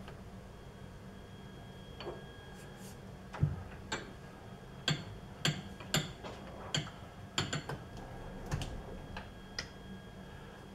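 Light metallic clicks and taps, about two a second but irregular, from hand adjustment at a metal lathe: squaring a cutoff tool in the tool post and turning the chuck by hand. A faint steady hum runs underneath.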